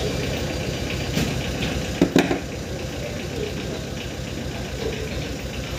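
Steady low machine running sound with an even pulse, with a brief cluster of sharp metallic clicks about two seconds in as needle-nose pliers work a small retaining clip free from a hydraulic solenoid valve body.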